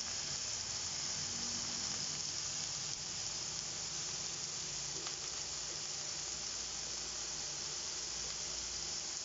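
Vegetables sizzling in a frying pan over a gas flame: a steady, even frying hiss.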